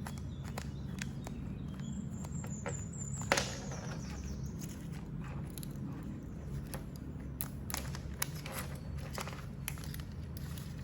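Metal carabiners and small tools being handled and clipped onto a belt tool pouch: scattered sharp clicks and clinks, the loudest about a third of the way in, with a faint high squeal near it. A steady low hum sits behind throughout.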